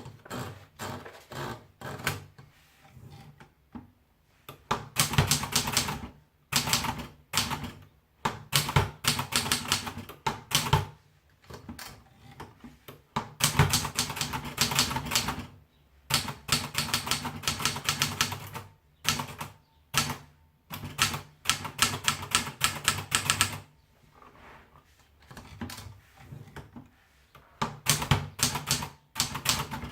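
Triumph Tippa S portable manual typewriter being typed on: runs of rapid keystrokes clacking, broken by short pauses, with a few softer, sparser stretches.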